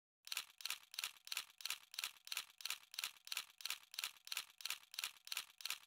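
A faint, steady rhythm of short shaker-like rattles, about three and a half strokes a second.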